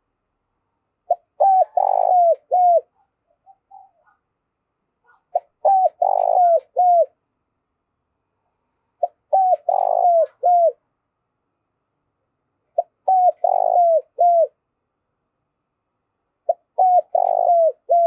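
Spotted dove singing its cooing song: five phrases about four seconds apart. Each phrase is a quick run of short coos around a longer, rougher middle note, ending in falling notes.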